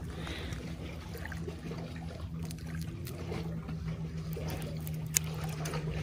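Steady low motor drone, with faint water trickling over the rocks and one sharp click about five seconds in.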